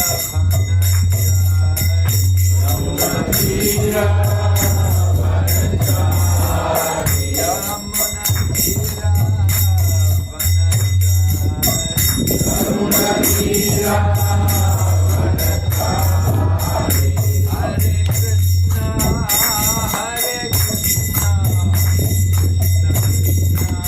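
Devotional group singing (kirtan) with small hand cymbals ringing in a steady rhythm. A loud low sustained bass tone holds under the phrases and drops out briefly between them.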